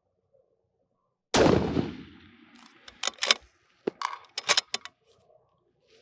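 A 6.5 Creedmoor bolt-action rifle fires a single loud shot about a second in, followed by a quick run of sharp metallic clicks and clacks.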